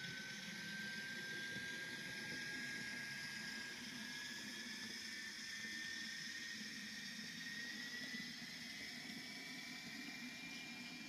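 Model shunting locomotive running along the layout track: a thin whine from its drive, rising slowly and steadily in pitch, over a low running rumble and hiss.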